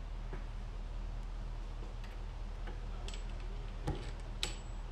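Light clicks and taps of small parts being handled and fitted onto a supercharger assembly, a handful of separate ticks with the sharpest two near the end, over a steady low hum.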